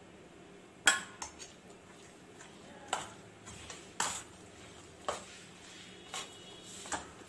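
Stainless steel kitchenware clinking as spices are added to a steel mixing bowl of dal batter: about eight sharp, ringing taps at uneven intervals.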